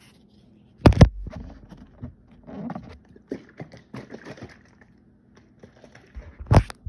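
Capped bottle of juice being handled and shaken up: a loud knock about a second in and another near the end, with rustling and irregular knocking between.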